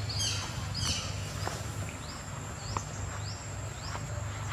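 Outdoor wildlife ambience: short rising chirps repeating about twice a second over a steady high-pitched insect drone, with a low hum underneath and a few faint clicks.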